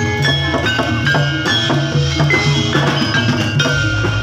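Live Javanese gamelan accompaniment for a jathilan horse dance: metal keyed instruments struck in a quick, steady rhythm, their notes ringing on over a drum. A deep low note swells in near the end.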